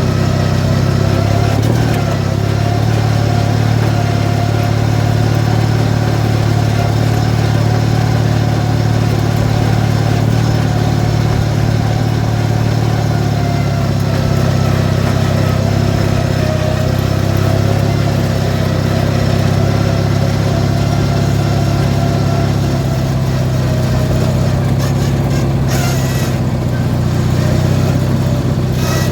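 18 hp Briggs & Stratton twin-cylinder engine of a modified Craftsman riding mower running steadily, its speed drifting slightly, with a couple of brief rattles near the end.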